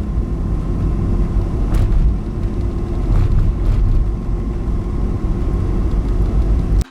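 Road traffic: cars passing with a steady low rumble, which cuts off suddenly near the end.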